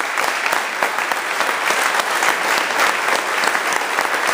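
Crowd applauding: dense, continuous hand-clapping from a room full of standing guests.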